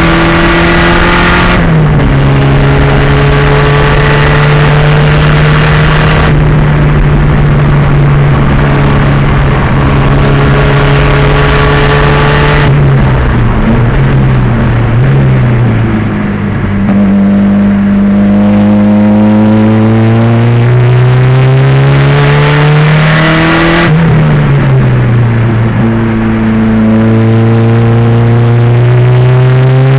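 1987 Pontiac Fiero's 2.0-litre turbo engine being driven hard on a race track. The revs hold high, drop at an upshift about two seconds in, ease off and fall from the middle to a low point, then climb steadily before another shift and climb again near the end.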